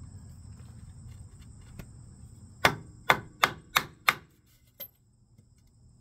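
Five quick hammer blows, about three a second, on a small wooden board held against a new oil seal, tapping it into the front-wheel hub of a 2005 Massey Ferguson 461 tractor.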